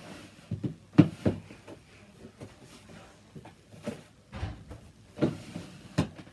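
Handling noise of 5.25-inch floppy disks being picked up and shown: several scattered short knocks and rustles.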